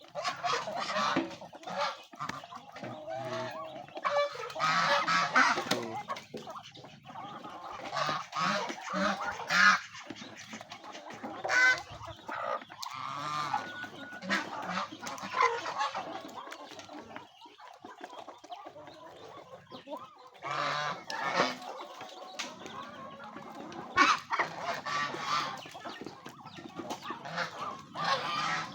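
Domestic geese honking repeatedly among a mixed flock of chickens and ducks calling.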